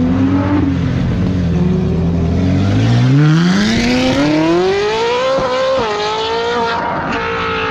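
Car engine revving hard: its pitch climbs steeply for about two seconds, dips once, then holds at high revs.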